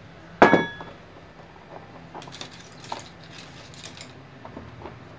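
A sharp metallic clink that rings briefly about half a second in, followed by lighter clicks and rattles of small metal parts being handled as an electric dough mixer's base assembly is fitted back together.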